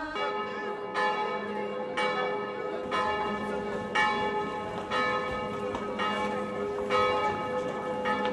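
Church bells ringing, struck about once a second, each stroke ringing on under the next.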